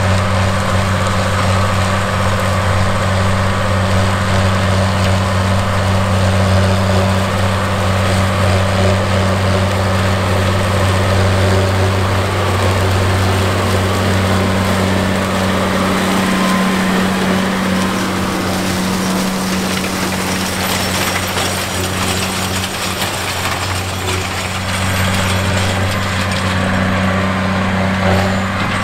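John Deere 9620T tracked tractor's 500 hp diesel engine running at a steady working speed under load, pulling a 30-foot McFarlane reel disk. It makes an even, deep drone that eases a little past the middle and builds again near the end.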